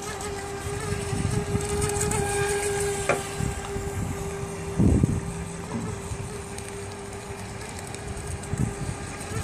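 Traxxas Vector 28 RC boat's brushless electric motor running with a steady high whine as the boat speeds across the water, over a low rumble, with a short low thump about five seconds in.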